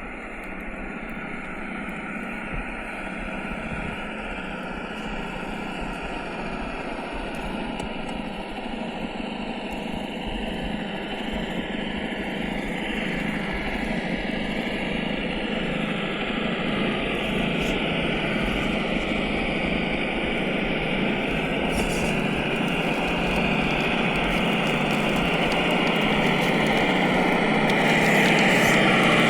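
Simulated engine sound from a GT Power sound module, played through the small onboard speaker of an FMS FJ40 RC crawler. It runs continuously, its pitch wandering up and down with the throttle, and grows slowly louder, with a quicker rise and fall in pitch near the end.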